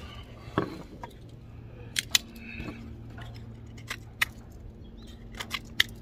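Small hard objects being handled: a pocket knife giving scattered sharp clicks and light metallic clinks, about seven separate ticks, over a low steady hum.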